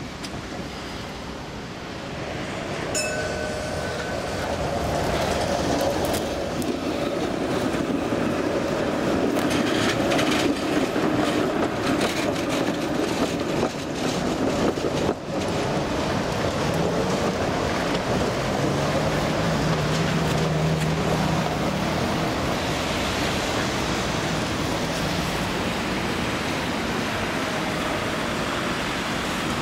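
V3A-93 articulated trams running through a tight curve and over the track junction. The wheels rumble on the rails, with short squealing tones early on and a run of clicks partway through as the wheels cross rail joints. The sound grows louder as the trams come close.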